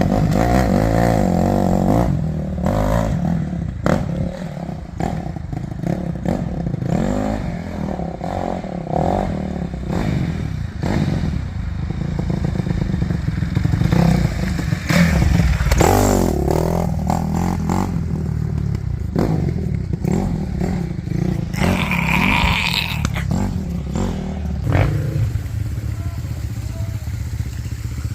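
Dirt bike engine running, its revs rising and falling over rough ground, with scattered knocks and clatter.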